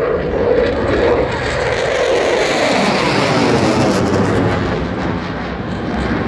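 Eurofighter Typhoon's twin jet engines running in afterburner as the fighter pulls up into a vertical climb: a loud, steady jet roar that sweeps in tone around the middle.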